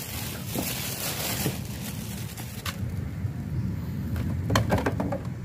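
A plastic car armrest console box being handled, its lid giving a click and then a quick run of clicks and rattles about four and a half seconds in, over a steady low rumble.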